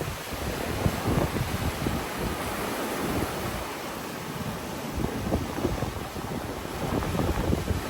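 Ocean waves washing on a beach in a steady surf wash, with wind buffeting the microphone in uneven low thumps.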